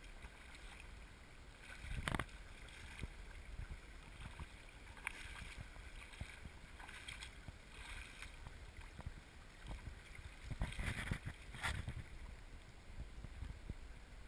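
Shallow, gravelly stream running, with water sloshing and splashing around wading legs. There are short louder splashes or bumps about two seconds in and again around eleven to twelve seconds in.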